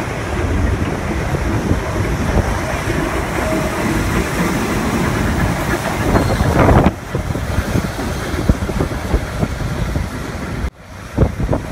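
Vintage New York City subway cars running past on elevated track, their wheels rumbling and clattering over the rails. The sound swells about six seconds in as a car passes close, then breaks off twice at cuts, with wind on the microphone.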